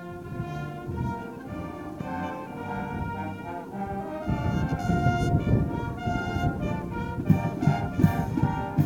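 Military brass band playing sustained chords, swelling louder about four seconds in, with a few sharp accents near the end.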